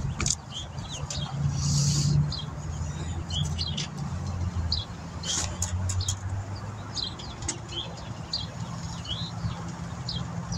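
Small birds chirping in short, repeated high chirps over a steady low hum, with a few sharp clicks and clinks of tools working in a car's engine bay.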